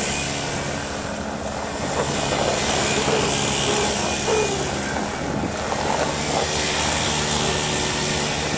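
Off-road vehicle engine running steadily at an even speed, with no revving.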